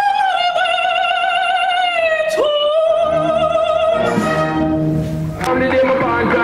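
A female singer holds a long operatic note with wide vibrato, sliding down to a second held note, over a wind band. About four seconds in, the band's chords come in fuller. Near the end the music cuts abruptly to a different track.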